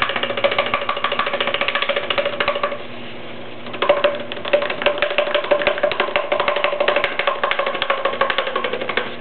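A soft clay coil being shaken up and down inside a cardboard paper towel tube, knocking against the tube in a fast, continuous rattle. This is the shaking that stretches the coil into a pottery handle. The rattle pauses briefly about three seconds in, then resumes.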